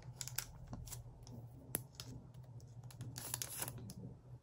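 Light clicks, taps and rustles of stiff photocards and their packaging being handled and shuffled, with one sharper click a little under two seconds in and a cluster of taps a little after three seconds.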